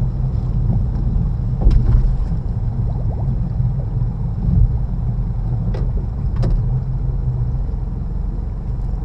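Engine of an electrofishing boat running steadily, a continuous low drone, with a few light knocks over it.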